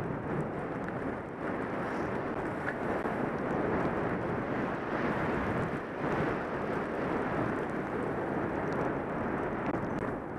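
Wind rushing over a helmet-mounted microphone, mixed with skis sliding over groomed snow during a downhill run: a steady rushing noise.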